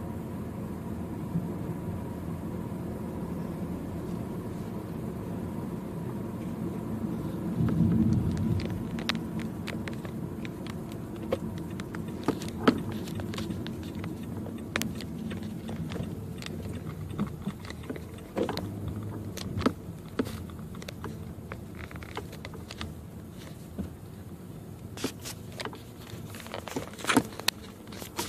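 Steady engine and road rumble inside a moving car's cabin, swelling louder for a moment about eight seconds in. Scattered sharp clicks and taps join from about nine seconds on and come thicker near the end.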